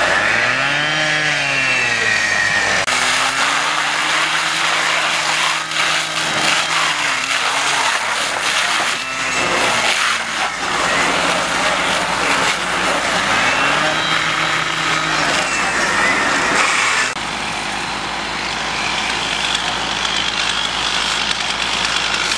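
An engine revving up, holding and easing off several times, over a steady hiss of spraying water and fire. The sound changes abruptly about three seconds in and again near the end.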